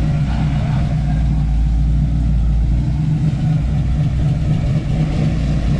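A car engine idling steadily, a constant low rumble with an even pitch.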